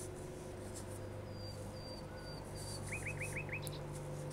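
A small bird chirping in the background: a few short high chirps, then a quick run of five chirps about three seconds in, over a steady low hum.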